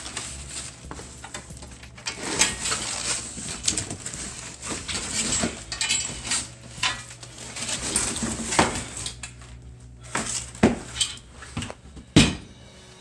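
Heavy steel sawmill parts being unpacked from a cardboard box: cardboard and plastic wrap rustle and scrape, and the metal clanks now and then. A sharp knock near the end as a steel bracket is set down on a tile floor.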